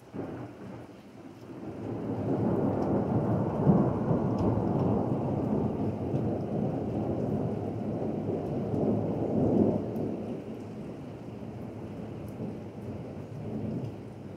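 A thunderclap breaks suddenly and rolls on in a long rumble, swelling a few seconds in and easing off after about ten seconds, over steady rain.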